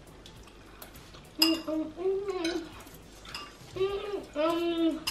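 Forks clinking and scraping on plates during a meal. Several short voiced sounds from a person come between the clinks, in the second half most of all.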